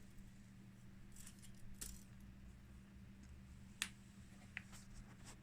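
Faint handling sounds as a t-shirt is measured for length: a few soft clicks and rustles, the sharpest about four seconds in.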